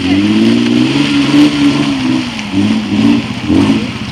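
Nissan Pathfinder's V6 engine revving up and down repeatedly as the lifted truck works through deep mud, its pitch rising and falling several times.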